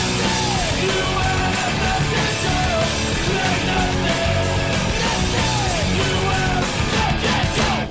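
Loud rock music with singing, which cuts off abruptly at the very end.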